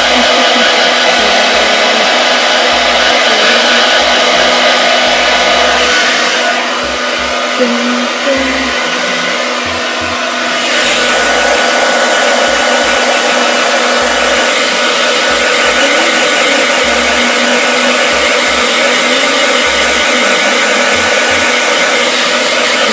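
Handheld hair dryer blowing steadily on damp hair, with a faint whine running through the rush of air. About six and a half seconds in it turns quieter and duller for a few seconds, then comes back to full strength.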